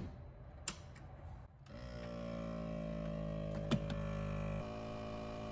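A click, then an ARB on-board air compressor starting about a second and a half in and running with a steady hum, airing up a tire through the hose.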